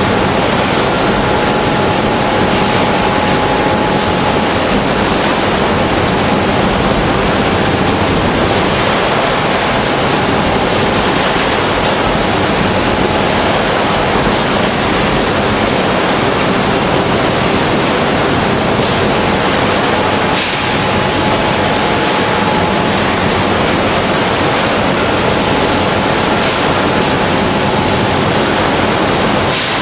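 Magnesium wire reacting in molten iron inside an enclosed treatment ladle, a loud, steady rushing noise with a faint constant hum underneath.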